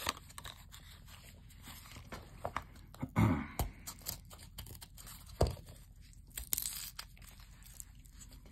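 Plastic-and-card blister packaging of 357 button-cell batteries being picked at and torn open by gloved hands: scattered crackles, clicks and tearing, with a few louder snaps about three and five and a half seconds in.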